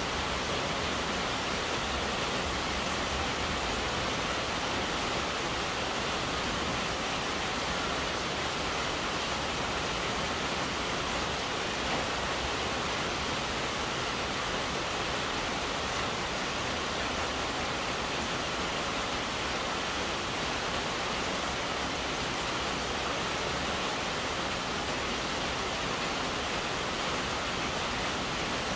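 Heavy rain pouring down steadily, an even unbroken hiss heard from under a station platform's roof canopy.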